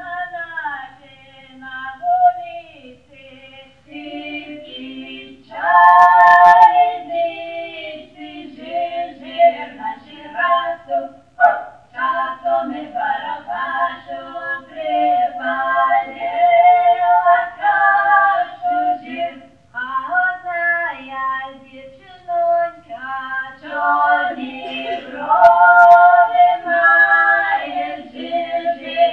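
Voices singing a Western Georgian table song in harmony, unaccompanied: a lower part and a higher part move together in long sung phrases with short breaks for breath.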